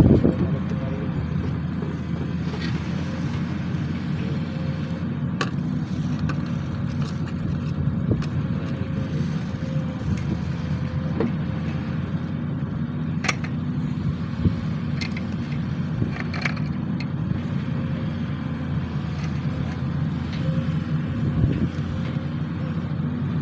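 Sany SY215C excavator's diesel engine running steadily while digging, with a few sharp clicks and knocks scattered through.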